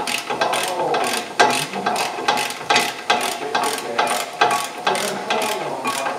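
Hand ratchet wrench clicking in quick, slightly uneven strokes, about two a second, as it backs out a 17 mm caliper mounting bracket bolt.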